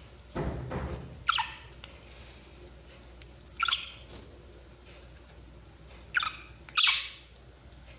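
Parrots giving short, sharp chirping calls, four of them spaced a couple of seconds apart, the last two close together. A low muffled noise lasting under a second comes about half a second in.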